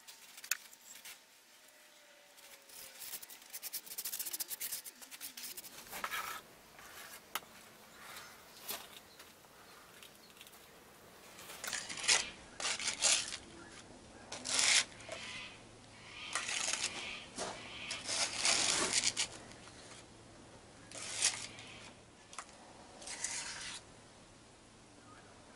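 Gloved hands and a small tool scraping and rubbing wet plaster investment, scooped from a bowl and smeared over a wax sculpture, in irregular strokes that come thicker in the second half.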